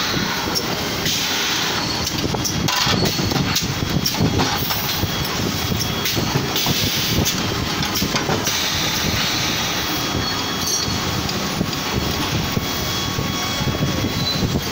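Automatic projection welding machine cycling: a steady, loud mechanical clatter with short hissing bursts a few seconds apart.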